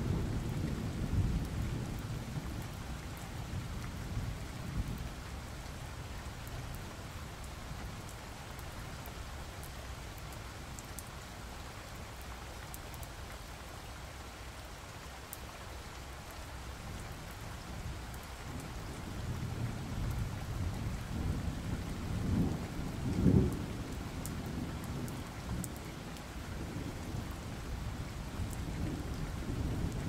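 Steady rain with low rolls of thunder. One rumble swells and peaks a little past two-thirds of the way through, and another builds near the end.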